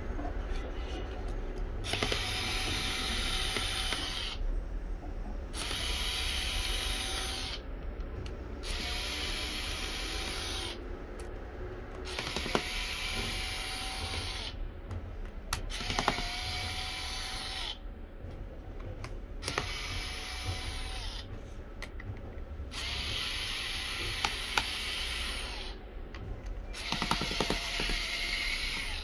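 Cordless electric screwdriver motor whining in repeated runs of two to three seconds with short pauses between, about eight times, working the screws of a laptop's bottom cover, with a few sharp clicks.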